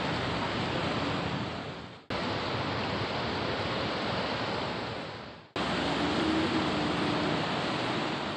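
Steady rushing of a swollen river running high and fast after heavy rain. It is broken by two abrupt cuts, about two seconds and five and a half seconds in.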